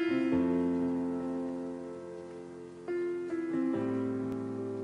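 Slow piano music: a few chords struck and left to ring and fade.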